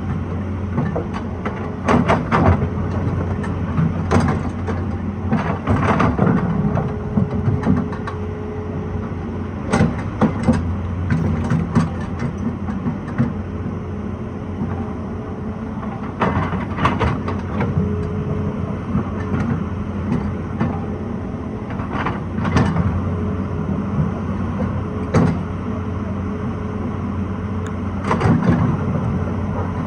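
Excavator's diesel engine running steadily while working, with a higher steady tone that comes and goes and repeated sharp clanks every few seconds.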